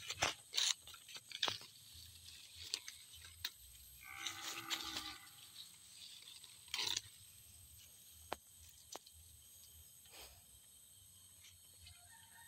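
Short rustles and snaps of leafy plants and dry grass being handled and picked by hand. About four seconds in, an animal gives one pitched call lasting about a second.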